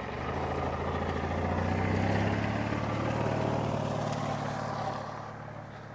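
A motor vehicle's engine running at a steady pitch close by, growing louder and then fading away near the end as it passes.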